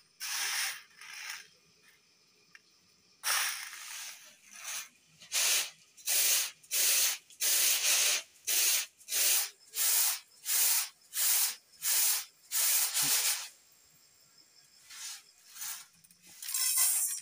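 Raw rice swishing across a woven bamboo winnowing tray as it is rocked and tossed to clean the grain: a rhythmic run of about a dozen even swishes, roughly one and a half a second. The tossing stops and a rustle of rice being scooped by hand follows near the end.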